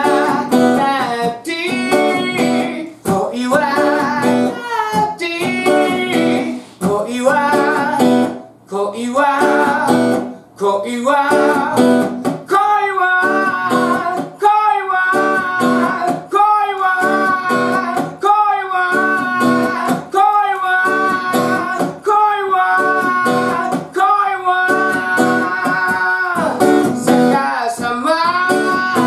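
A man singing along to his own strummed steel-string acoustic guitar, holding long notes in the second half.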